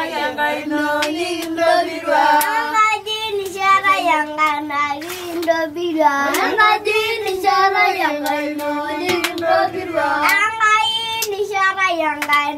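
A group of children singing a song together in high voices, clapping their hands along with it.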